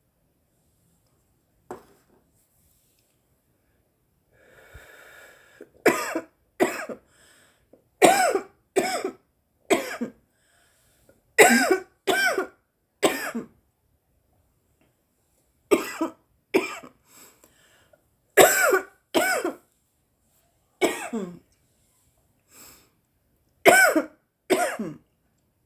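A woman coughing hard from inhaled cannabis smoke: about fifteen harsh, voiced coughs in fits of two or three, starting about six seconds in and recurring every couple of seconds.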